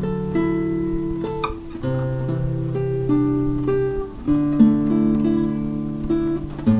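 Acoustic guitar music, chords strummed and plucked, changing about every second or two.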